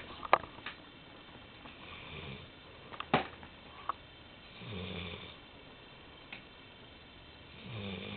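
Golden retriever snoring, a drawn-out snore about every three seconds, with a few sharp clicks in between.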